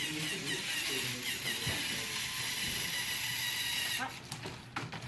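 LEGO Mindstorms NXT servo motors driving a small robot car: a geared whir with short pitch glides, cutting off about four seconds in, followed by a few light clicks.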